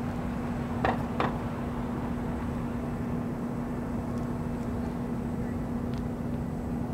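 Steady outdoor urban rumble over a rail yard, with a constant low hum. Two short, sharp knocks come close together about a second in.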